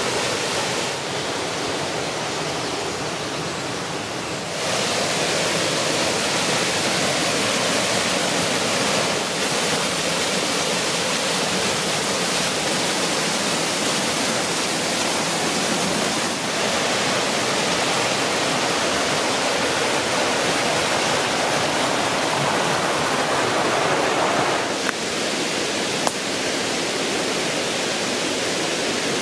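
A small waterfall and its stream rushing steadily, a dense even roar of falling water. It grows louder and fuller about four and a half seconds in and thins a little near the end.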